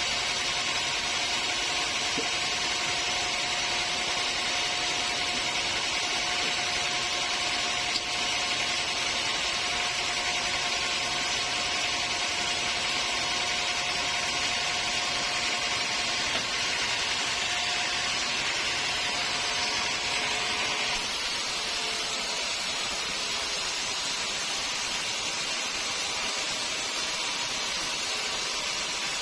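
Sawmill machinery running steadily: a continuous hiss with a faint steady whine underneath. The sound changes abruptly about twenty seconds in.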